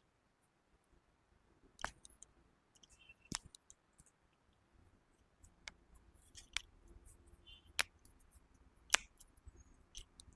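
Scattered sharp clicks and taps from hands-on chiropractic treatment, about seven over ten seconds, with the sharpest near the end. Faint rustling runs between them.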